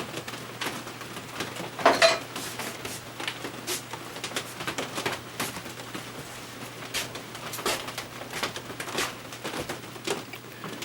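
Irregular scraping and scratching as grime is cleaned off the metal of a vintage Jacobsen mower engine, with a louder knock about two seconds in.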